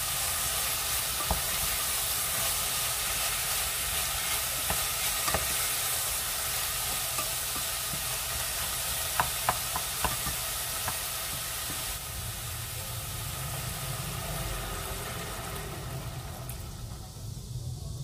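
Diced vegetables and cherry tomatoes sizzling in olive oil in a stainless steel pot while a wooden spoon stirs them, knocking lightly against the pot a few times. The sizzle quietens near the end.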